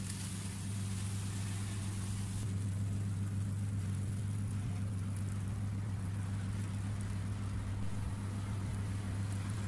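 Steady low electrical hum of a kitchen appliance running, with faint sizzling from a hot tray of freshly baked chicken wings and potatoes that fades about two and a half seconds in.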